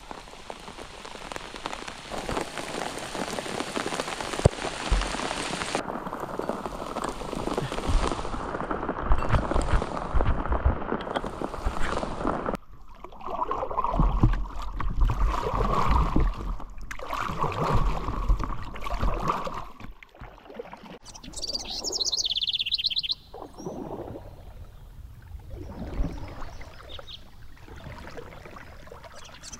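Rain falling steadily on a river's surface, a dense even hiss. Louder low rumbling follows in the middle, and the last third holds birds chirping, with short high calls repeated over and over.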